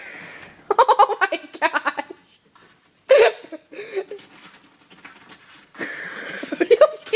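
A person laughing in several pulsing bursts, with pauses between them; the last burst rises in pitch near the end.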